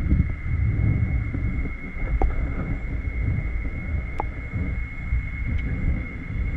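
Bubbling, churning water in an aerated seaweed tank, heard from underwater through a camera housing: a dull, muffled rumble with a steady high tone over it and a couple of faint clicks, about two and four seconds in.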